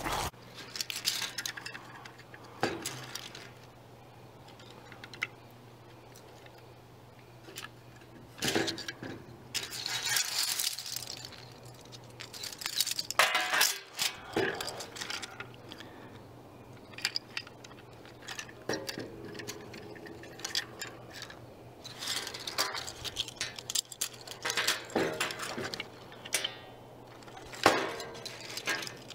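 Hands handling 3D-printed plastic sample strips and their metal screws on a wooden board: scattered clicks, clinks and rustles over a steady low hum.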